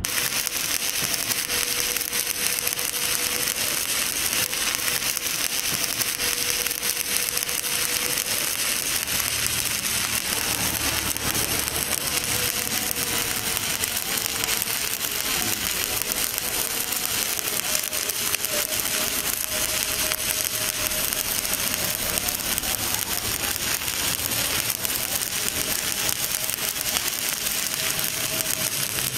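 Stick (shielded metal arc) welding on steel plate: the electrode's arc crackles and sizzles steadily without a break.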